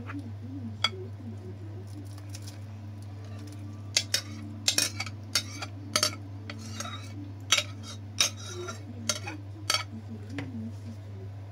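Cutlery clinking against a dish as diced mango pieces are put into mango juice: a dozen or so sharp clinks, most of them between about four and ten seconds in, over a steady low hum.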